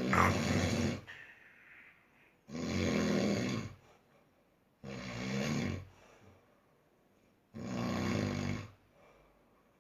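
A sleeper snoring heavily: four snores, each about a second long, coming roughly every two and a half seconds.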